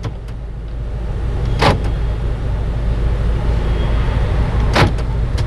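2012 Toyota Highlander's power door locks actuating twice, two short clunks about three seconds apart, over a steady low hum.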